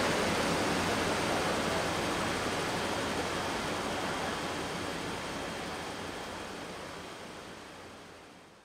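Steady rushing noise of a departing MTR East Rail line R-Train electric multiple unit as it moves away. It grows steadily fainter and dies away near the end.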